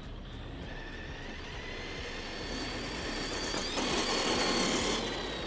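Arrma Granite Voltage 2WD 1/10 RC monster truck, running Red Cat motor and electronics, speeding past: a high electric-motor whine over tyre noise on asphalt. It grows to its loudest about four seconds in, then drops in pitch and fades as the truck goes by.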